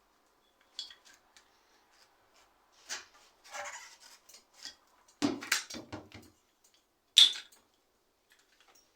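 Small metal tools and bicycle parts clinking and clattering as they are handled and set down during workshop work on a bike. The sounds come as irregular clicks and knocks, heaviest in a cluster about five seconds in and in a sharp clink near seven seconds.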